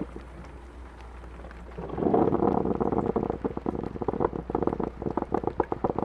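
Coffee pot brewing: gurgling and sputtering that quiets for about two seconds, then comes back in quick, irregular spurts, over soft rain and a low steady hum.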